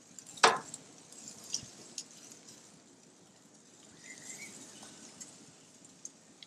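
Light metal clinks and taps as a basting brush works sauce from a stainless steel bowl onto ribs on a grill: one sharp clink about half a second in, then a few softer ticks and scrapes.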